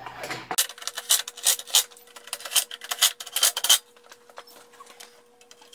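Aluminum fence track and its metal hardware being handled: a quick, irregular run of metallic clicks and rubbing for about three seconds, then it goes quiet.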